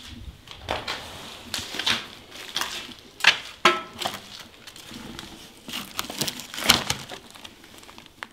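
Footsteps crunching irregularly over debris and rubble. About three and a half seconds in there is a short ringing clink.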